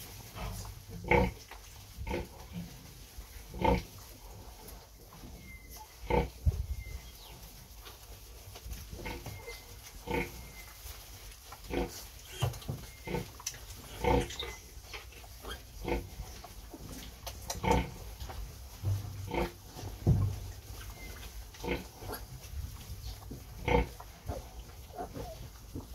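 Large White sow grunting while nursing her litter: short grunts every second or two. These are the repeated nursing grunts a sow gives while her piglets suckle.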